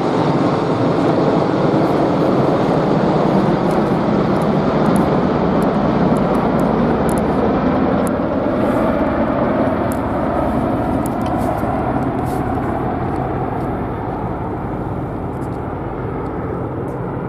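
Military aircraft flying overhead: a loud, steady rumble of engine noise that eases off slightly near the end.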